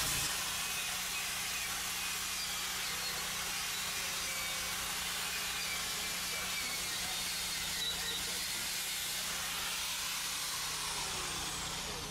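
Steady hiss of steam on a live high-pressure steam line, easing a little near the end.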